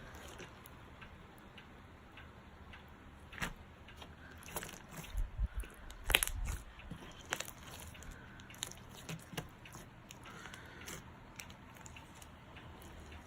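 Clear-glue slime with foam beads being pressed flat and worked by hand, giving faint, scattered crunches and sticky clicks, with a cluster of louder ones around five to six seconds in.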